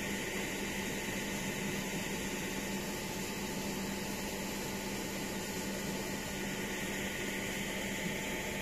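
Steady hissing background noise with a low, even hum underneath, unchanging throughout, with no distinct events.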